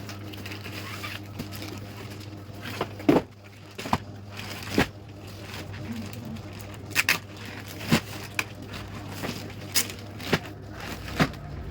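Packaging being handled and torn open during an unboxing: irregular sharp crackles and snaps, the loudest about three seconds in, over a steady low hum.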